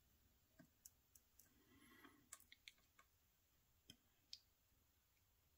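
Near silence with a few faint, scattered clicks: metal multimeter test-probe tips touching and lifting off a switch machine's terminal pins.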